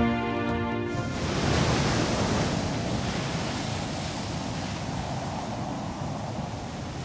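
Background music stops about a second in, giving way to the steady noise of sea surf washing on a sandy beach.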